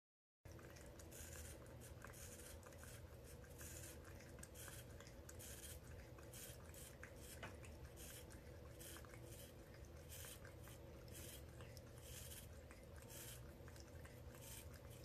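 Faint scratchy strokes of a toothbrush's bristles rubbing against a hairless Sphynx cat's face and tongue, irregular and repeated, over a low steady hum.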